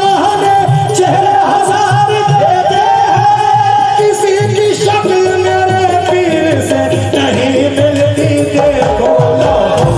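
Live qawwali music: harmonium and tabla accompanying a singing voice, with a steady drum rhythm.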